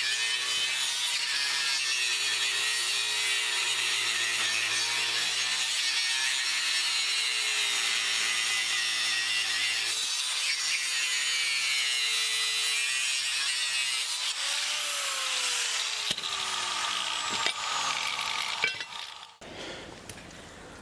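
Electric angle grinder grinding the edge of 4-inch by 1/4-inch flat steel stock, beveling it: a loud, steady grinding screech over the motor's whine. Over the last few seconds its pitch sinks steadily, with a couple of sharp knocks, and it stops about a second before the end.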